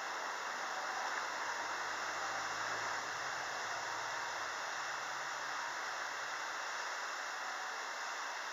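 Steady hiss of outdoor background noise, with a faint low rumble that swells and fades over the first few seconds.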